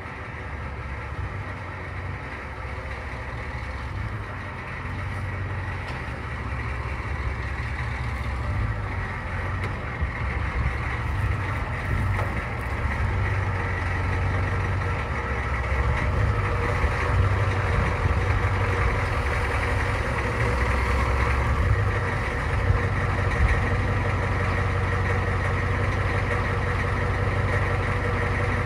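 Ford truck's 6.9-litre IDI diesel V8 running steadily just after a cold start while the truck creeps backward out of the garage, growing louder over the first half as it comes nearer.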